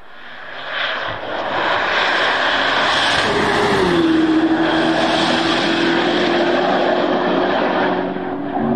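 Twin-turbo V8 of a camouflaged Corvette ZR1 test car running hard on track, swelling up in the first second. A strong engine tone drops in pitch about three seconds in, then holds steady.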